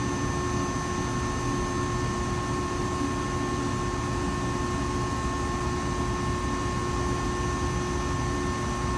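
Electrical equipment and its cooling fans running: a constant rush of fan noise with a steady electrical hum and several high, even whining tones that never change.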